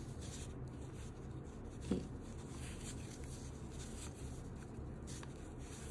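Faint scratching and rubbing of a crochet hook drawing yarn through single crochet stitches, with one brief low blip about two seconds in.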